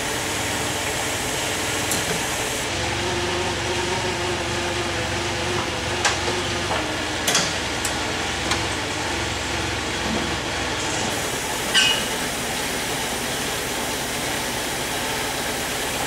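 A steady mechanical hum with a few short metal clinks and clanks as a Land Cruiser straight-six engine is hoisted on chains up out of its engine bay.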